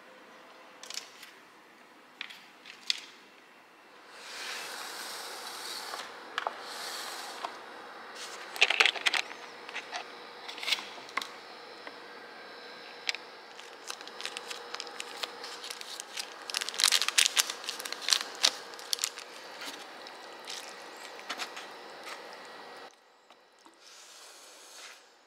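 Clicks, scrapes and rustling of small objects being handled in a small room, in irregular bursts.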